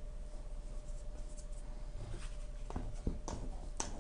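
Hands handling a stainless-steel mixing bowl of dough on a wooden table: light scrapes and a few small knocks in the second half, over a faint steady hum.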